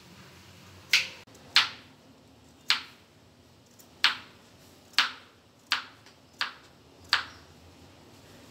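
Kitchen knife slicing a carrot into rounds on a wooden cutting board: eight sharp knocks of the blade hitting the board, unevenly spaced at roughly one a second.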